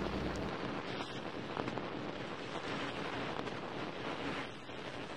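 Steady rushing, static-like noise with a few faint crackles: the sound bed of a glitch-style animated outro card.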